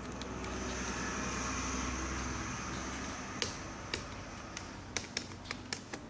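Sounds of working on a Toshiba NB550D netbook's plastic case: a steady rushing noise over the first three seconds or so, then a string of sharp clicks and taps that come more often near the end.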